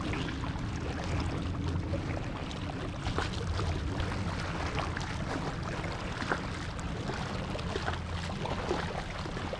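Small waves lapping and splashing against shoreline rocks, a steady wash of water with a low rumble and faint scattered ticks.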